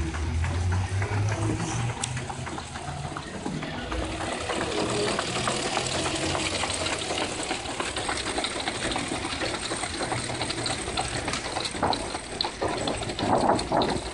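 Veneer splicing machine running as veneer sheets feed through it: a steady mechanical whir with rapid clicking, under a low hum that fades out in the first couple of seconds.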